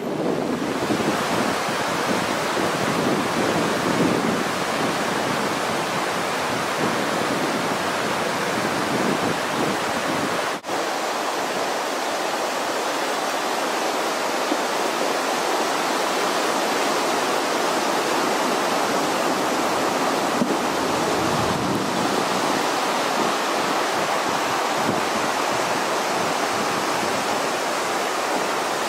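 Floodwater rushing in a steady, loud torrent, with a brief dropout about ten seconds in.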